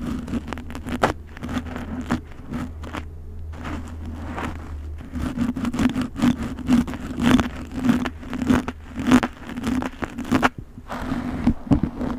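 Close-up scratching and rustling of a thin pointed tool drawn through hair, in short irregular strokes, over a steady low hum.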